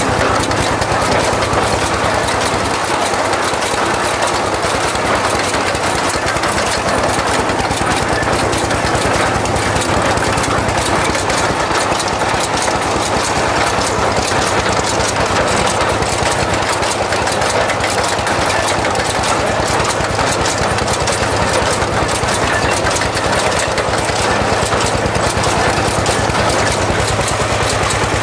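DT-20 tractor's single-cylinder diesel engine running steadily under load with a rapid, even beat while it pulls a hay rake.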